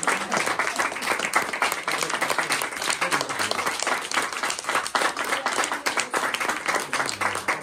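A small audience applauding, dense steady clapping from many hands.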